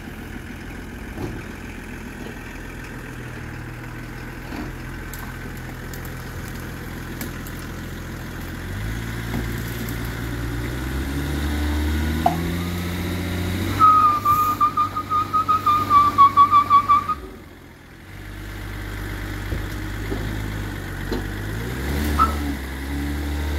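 Range Rover P38 2.5 DSE's turbo-diesel straight-six running under load as it pulls on a tow strap, the revs stepping up about a third of the way in. A high, wavering whistle with a pulsing loudness joins for a few seconds in the middle. Then the engine note drops away sharply and builds again near the end.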